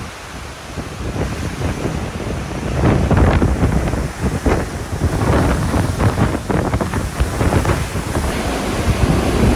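Hurricane Ian's wind blowing in strong gusts, rushing and buffeting the microphone, swelling and easing every second or two.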